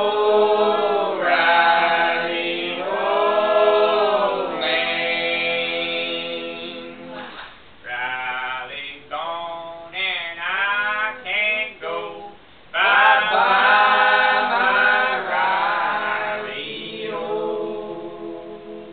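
A man singing unaccompanied, in long held notes, with a run of shorter, quicker phrases in the middle.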